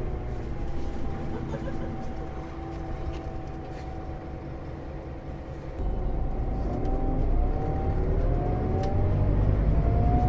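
Scania Citywide Interurban bus diesel engine. It runs steadily with its tone sinking slightly for about six seconds, then pulls harder with a sudden jump in level, and its pitch climbs as the bus accelerates.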